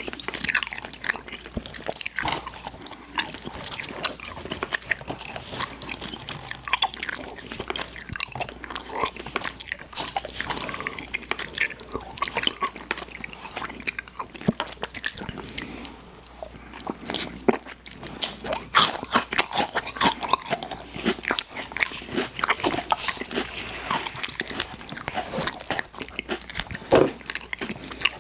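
Close-miked chewing and biting of candy: a dense, irregular run of wet, crackly mouth sounds with occasional sharper crunches.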